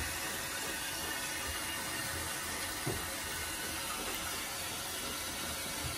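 Water running from a handheld shower into a bathtub while a dog is washed in it: a steady hiss of spraying water, with a small knock about three seconds in.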